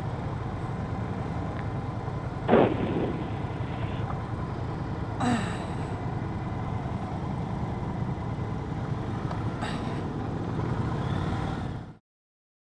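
Motorcycle engine running steadily with a low rumble. A brief loud sound sweeps up about two and a half seconds in, and a shorter one comes about five seconds in. The sound cuts off abruptly near the end.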